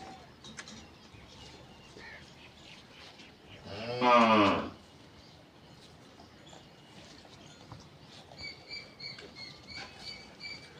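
A bovine moos once, a single loud call about a second long, about four seconds in. Faint, evenly repeated bird chirps follow near the end.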